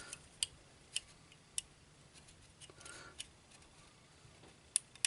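Small sharp clicks and taps of plastic model-kit parts being handled and pressed together, about five scattered over a few seconds with low room tone between.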